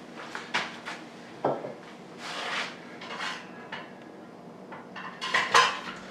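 Kitchen clatter as a wooden cutting board is taken out and handled at a countertop. There are scattered knocks and clicks with a few scraping swishes, the loudest near the end.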